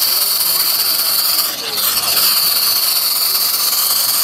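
Live steam model of a Pennsylvania Railroad steam locomotive hissing steam steadily as it runs along the track. The hiss dips briefly about a second and a half in.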